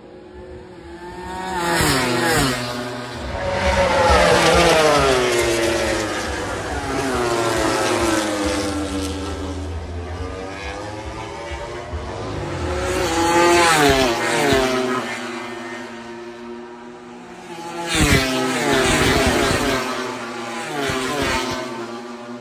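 MotoGP racing motorcycles' four-stroke engines revving hard as bikes pass at speed, several passes in a row, the pitch sweeping down as each goes by.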